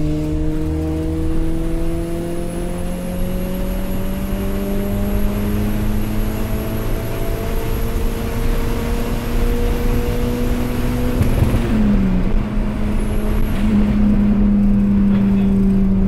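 Turbocharged Tofaş Doğan's four-cylinder engine pulling at motorway speed, its pitch rising slowly, with a high turbo whistle above it. About eleven seconds in, the whistle cuts off and the engine note drops at a gear change, then the engine pulls on louder in the next gear.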